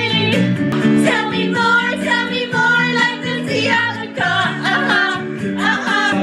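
A song with singing over guitar.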